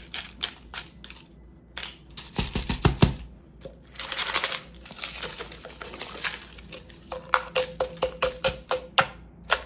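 Ice clinking and rattling into a plastic tumbler as it is poured in and pressed down, with a rush of ice sliding in about four seconds in and a fast clatter near the end. A few dull knocks come about two and a half seconds in as the cup is tapped down to settle the ice.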